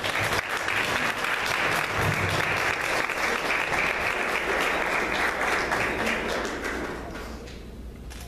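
Audience applauding, starting all at once and dying away about seven seconds in.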